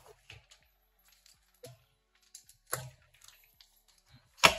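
Scattered clicks and knocks of plastic wheels and tyres being worked onto the steel rear axle of a small electric ATV, with a sharper knock a little under three seconds in and a loud sharp knock near the end.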